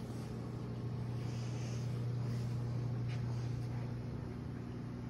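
Steady low electric hum of running aquarium equipment, such as the air pump and canister filter, with a faint hiss of bubbling water and a light tick about three seconds in.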